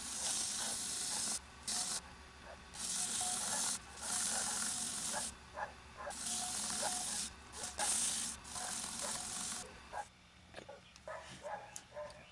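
Polishing pad pressed against a wooden box spinning on a lathe, hissing in repeated bursts of one to two seconds as friction polish is rubbed in, over the lathe's low hum. The hissing stops about ten seconds in.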